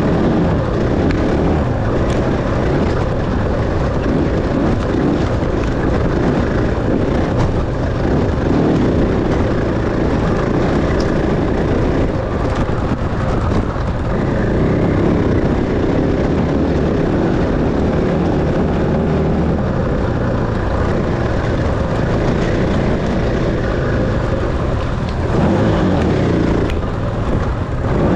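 Dirt bike engine running steadily under changing throttle as it is ridden, mixed with a steady rushing noise.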